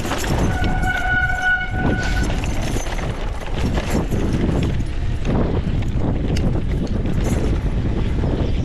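Mountain bike clattering and rattling over rough trail at speed, with tyre roar and wind on the microphone. About half a second in, a steady squeal with overtones sounds for just under two seconds, typical of a disc brake squealing under braking.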